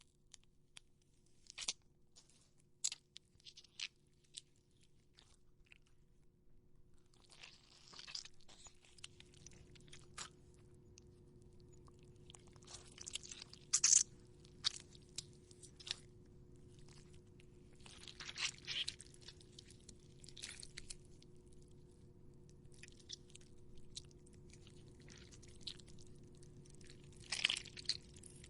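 A tomato being squished and broken up close to the microphone: irregular wet, crackly squelches coming in bursts, with a few small clicks at first and the loudest crunches about halfway through and again near the end.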